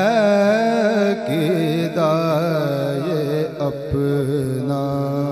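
A male voice singing an Urdu naat, drawing out one long ornamented note with no words; the pitch bends and wavers throughout.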